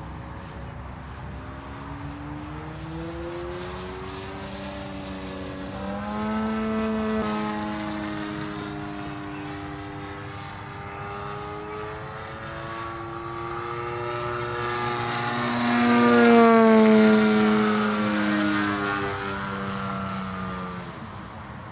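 Radio-controlled model airplane flying overhead, its engine and propeller drone gliding up and down in pitch as it manoeuvres. It grows loudest about three-quarters of the way through as it passes close, then falls in pitch as it moves away.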